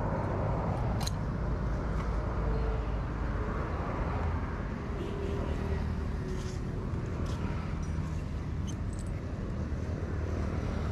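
Steady low background rumble with a few light clicks of small parts being handled on a workbench.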